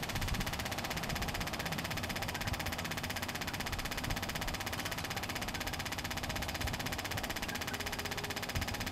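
Steady machine noise with a rapid, even pulsing, from a running waste motor oil distillation setup.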